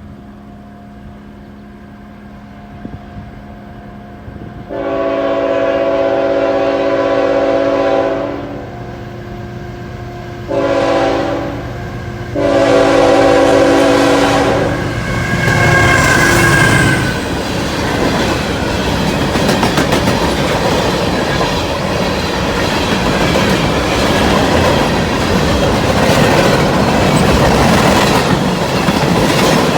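CSX freight locomotive's air horn sounding three blasts, long, shorter, long, over the low hum of the approaching diesel. The train then passes close by: locomotive and manifest freight cars rumbling past with wheel clickety-clack, loud and steady to the end.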